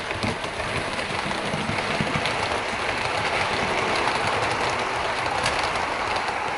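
Hornby OO gauge Class 87 model locomotive hauling a rake of Mark 3 coaches and a DVT past, a steady rattling running noise of the model's wheels on the track with a few faint clicks.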